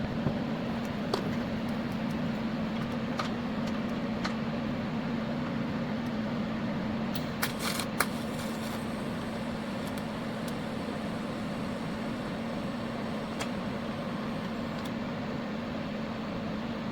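TIG welder running during a weld, a steady hum and hiss with a few light clicks.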